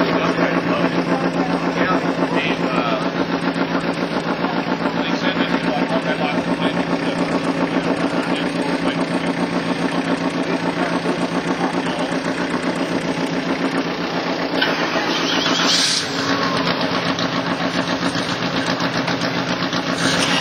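A motor vehicle engine running steadily at low speed close by, with an even, regular pulse. About three-quarters of the way through, a brief rising hiss sounds over it.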